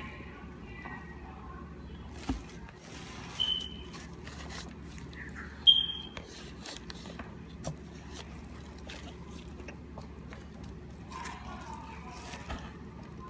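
Someone chewing microwaved cornstarch chunks: scattered crisp crunching clicks, with two short, high-pitched squeaks, the louder about six seconds in.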